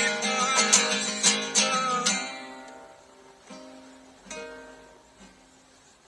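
Acoustic guitar strummed steadily, then stopping about two seconds in and fading, with a couple of lighter strums left to ring out as the song ends.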